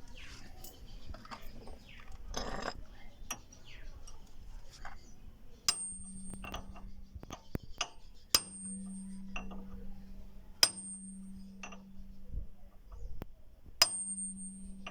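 Hammer blows on steel, as in driving a steering pivot bearing into a Suzuki Samurai's front axle knuckle: four sharp strikes a few seconds apart, each leaving a short metallic ring and a lingering hum, with lighter taps and clinks of tools in between.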